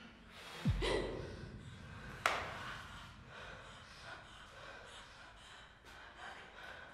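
Gasps and breathing, with a heavy low thump a little under a second in and a sharp knock a little after two seconds.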